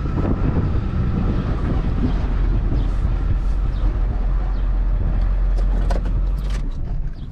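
Pickup truck engine and road noise heard from inside the cab while driving, a steady low rumble with a few faint clicks; the low drone eases off near the end.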